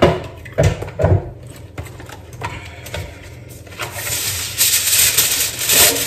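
A few knocks on the worktop in the first second, then foil crinkling loudly as a wrapper is handled and unfolded.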